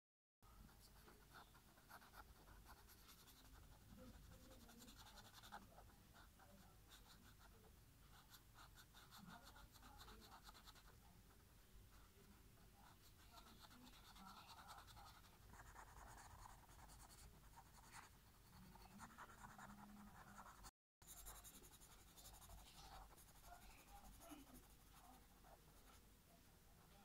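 Faint scratchy rubbing of felt-tip marker tips on paper in quick back-and-forth colouring strokes. The sound drops out for a moment about two-thirds of the way through.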